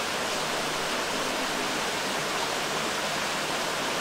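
Steady, even rushing of running water, such as a stream close by, with no breaks or changes.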